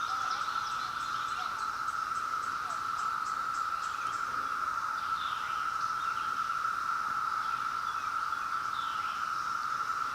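Chorus of periodical cicadas: a steady, unbroken drone. A few short chirps sound faintly over it.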